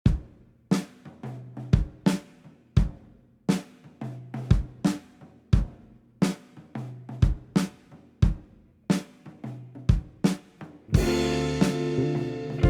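Music: a drum kit plays a beat on its own, with kick, snare and cymbal hits. About eleven seconds in, the full band comes in with guitars.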